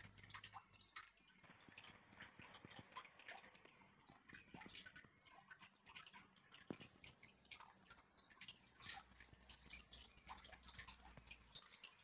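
Faint, irregular small clicks and crackles, several a second: handling noise of the paper pages of a printed user manual as they are leafed through.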